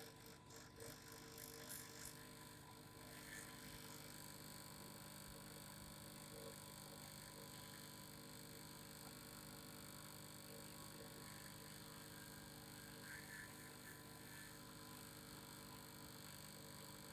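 Faint, steady vibrating hum, with light ticking in the first few seconds.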